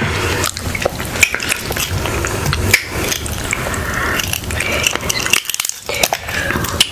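Close-miked eating sounds: wet, crackly smacking and handling of buttery seafood, with many sharp clicks of mussel shells and a spoon against a bowl of sauce.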